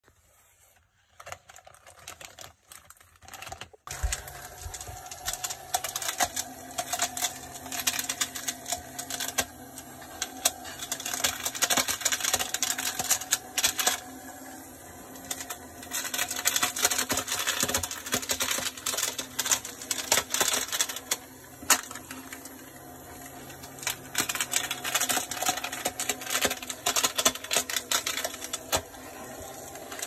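Small battery-powered DC motor and fan of a homemade plastic-bottle vacuum cleaner whirring steadily from about four seconds in, with rapid clattering as bits of polystyrene foam are sucked in and rattle inside the bottle. The clattering comes in long stretches and thins out twice for a couple of seconds.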